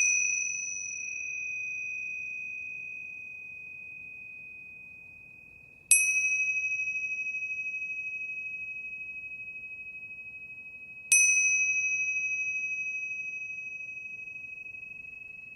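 A bell rings with one high, clear tone that slowly fades. It is struck again about six seconds in and again about eleven seconds in, signalling the end of the meditation session.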